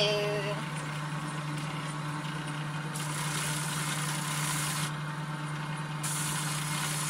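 A steady low hum, with two bursts of hissing: one about three seconds in, lasting about two seconds, and another about six seconds in, lasting about a second and a half.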